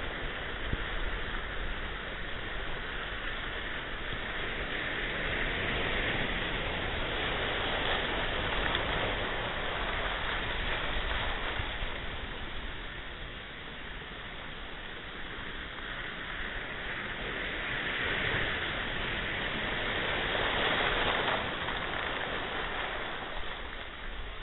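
Ocean surf: a continuous rush of waves washing in, swelling and easing every several seconds.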